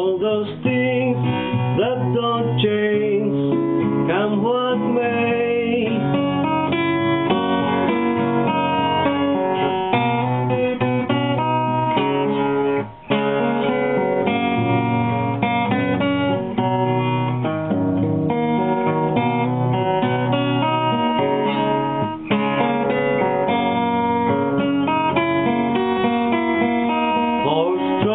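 Acoustic guitar music, strummed and picked, in a folk-style song.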